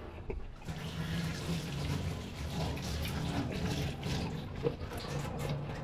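Kitchen tap running into a stainless steel sink, the water splashing steadily as hands rinse under it, with one small knock late on.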